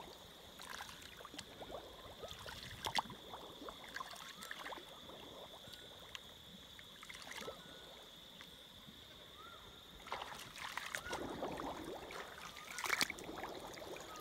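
Shallow paddy water sloshing and splashing as a person wades and gropes in it by hand to gather snails, with scattered sharp clicks and splashes. The splashing grows louder about ten seconds in, over a steady high-pitched drone.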